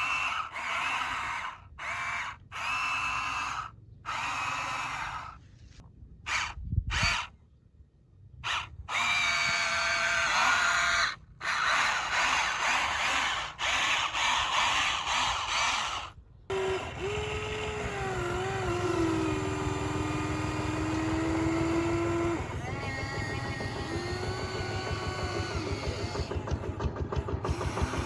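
Electric motors and gearboxes of radio-controlled construction models whining, starting and stopping abruptly over the first half, then running steadily with pitch that rises and falls as the motors change speed.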